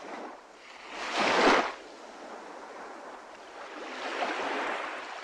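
Small waves washing up on a sandy beach, with a loud wash about a second in and a softer swell near the end.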